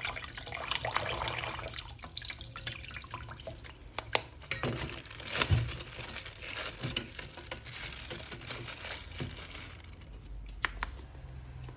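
Water running from a tap for the first couple of seconds, then dripping and splashing, with small clicks and knocks as a plastic action figure is washed by hand.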